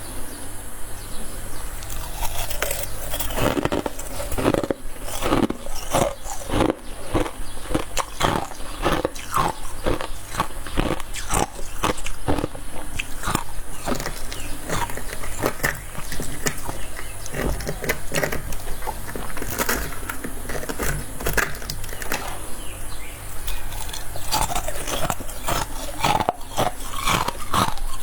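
A person biting and chewing freezer frost: a continuous run of crunches, several a second.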